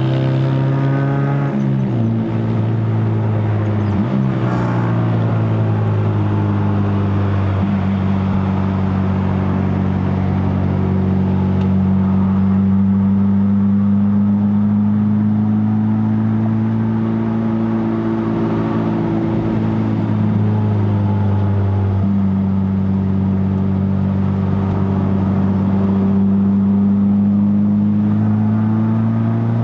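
A Honda K24A 2.4-litre inline-four with a straight-pipe stainless exhaust and KTuned muffler, running steadily under way. Its note falls abruptly a few times in the first several seconds and again later, as at gear changes in the six-speed manual, and swells and eases between them.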